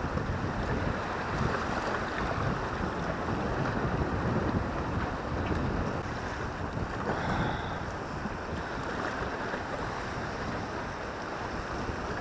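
Wind buffeting the camera microphone, over choppy sea washing against the shoreline rocks.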